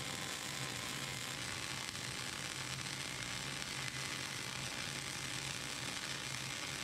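MIG welding arc running on steel plate: a steady crackling sizzle.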